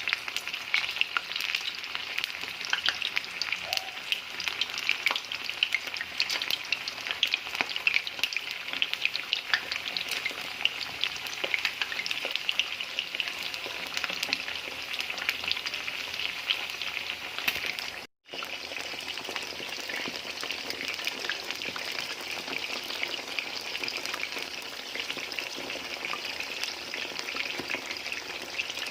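Sliced eggplant frying in hot oil in a pan, a steady sizzle with many small crackles and pops of spattering oil. It breaks off for an instant a little past halfway, then the sizzle carries on.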